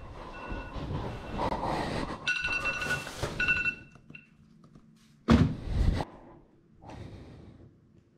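Bedding rustling with short bursts of an electronic beeping tone, like a phone alarm, that stops about three and a half seconds in. A couple of sharp thuds follow, then a softer one.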